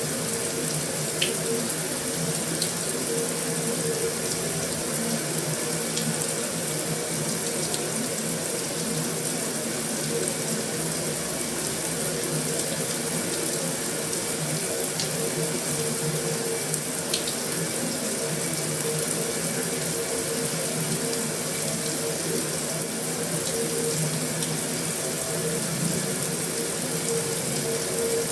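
Heavy rain falling steadily on a metal roof, with a few sharp ticks of single drops scattered through it.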